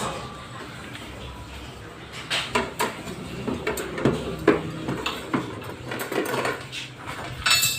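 Irregular clinks and knocks of hard metal objects being handled, starting about two seconds in and coming several times a second in uneven clusters, some with a short ring.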